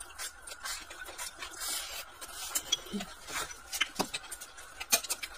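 Close-up eating sounds: chopsticks scraping rice from a porcelain bowl and chewing, with scattered light clicks of chopsticks and a spoon against the dishes.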